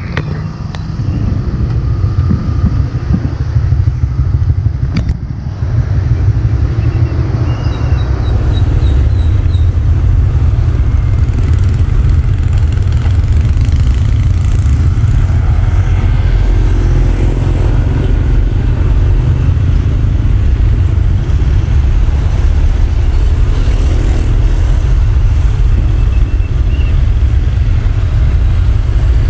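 Road traffic, mostly motorcycles, riding past with their engines running, over a loud steady low rumble.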